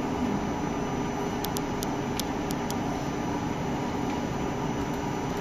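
Steady machine hum and fan hiss from a powered-on SMT pick-and-place machine. Near the middle there is a quick run of about six light clicks.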